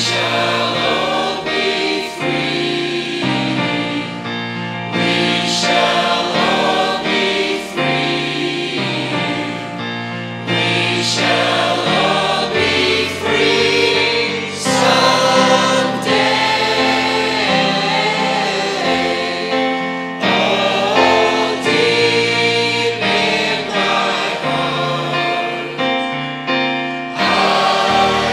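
Mixed choir of young male and female voices singing a song together.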